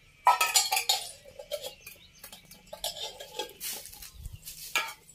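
Stainless steel milk pot clanking and clinking against the floor as it is handled, the loudest clank just after the start, followed by irregular lighter knocks.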